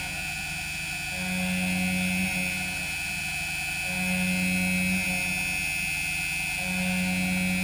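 Doosan Lynx 220 LY CNC mill-turn lathe milling a small aluminium sprocket: a steady high whine from the cutting, with a lower hum that swells and drops about every two and a half seconds as the tool moves through its passes.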